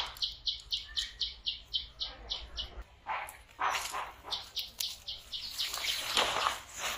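A bird calling, a quick run of about ten short high notes at about four a second, then a few more notes a little later. In the second half, irregular rustling crunches are louder than the bird.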